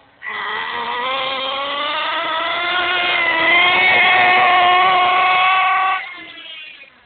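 HPI Bullet 3.0 nitro monster truck's .18-size glow engine opened up to full throttle, rising steadily in pitch as the truck accelerates, then falling away sharply when the throttle is let off about six seconds in.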